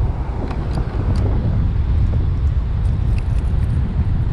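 Wind buffeting the microphone: a steady low rumble throughout, with a few faint clicks and ticks over it.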